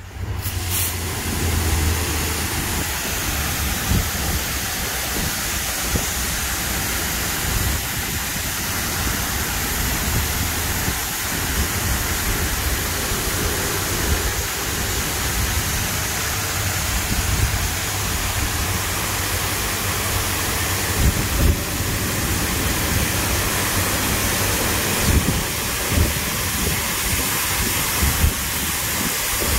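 Automatic gantry car wash spraying water over a car: a steady loud hiss of spray that switches on suddenly at the start, with a low rumble and occasional thumps underneath.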